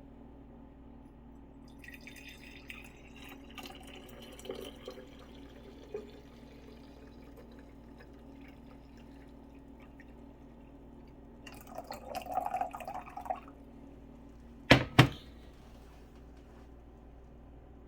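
Liquid trickling and dripping in short spells, with two sharp knocks close together about fifteen seconds in, over a faint steady hum.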